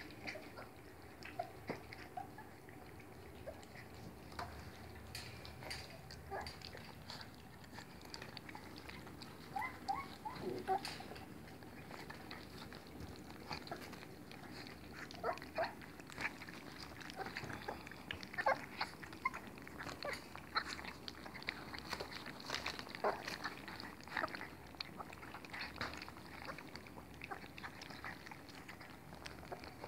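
A litter of three-week-old puppies lapping and smacking at wet oats and goat yoghurt in plastic bowls: a busy, irregular patter of small licks and slurps from several mouths at once. A few short squeaks come in about ten seconds in.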